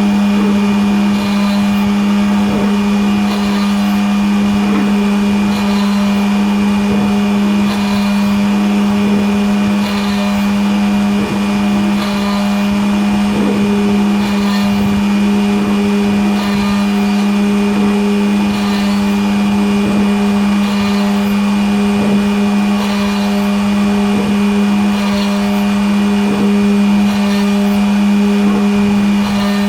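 Homemade Arduino-controlled CNC machine running, its motors giving a loud steady hum at one pitch, with faint regular ticks a little over once a second.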